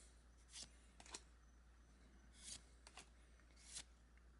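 Faint swishes of trading cards being slid and flipped by hand, four or five short strokes over a low steady hum.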